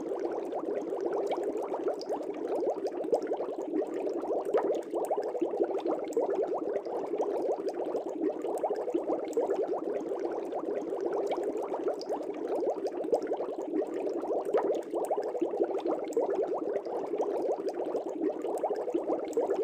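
Aquarium bubbles rising and bursting at the water surface: a dense, continuous stream of small bubbling pops.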